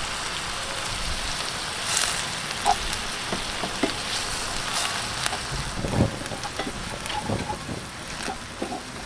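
Vinegar-based escabeche sauce sizzling in a hot pan, with a spoon stirring and knocking against the pan now and then.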